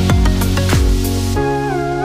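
Electronic background music. A beat of falling bass drops stops about two-thirds of the way through, and a held chord with a gliding lead melody takes over.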